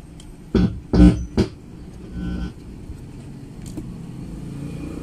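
Music with plucked bass or guitar notes playing through an amplifier's speaker and still audible with the volume knob turned all the way down: the amplifier's 50K volume potentiometer is faulty. Three strong notes come in quick succession about a second in, then fainter sound.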